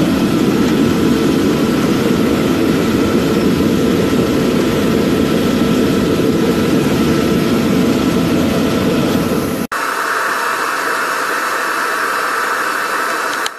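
Blower-fed forge running, with a loud steady rushing roar of the forced-air fire. About ten seconds in the sound cuts to a thinner, higher-pitched steady hum as the forge and blower keep running.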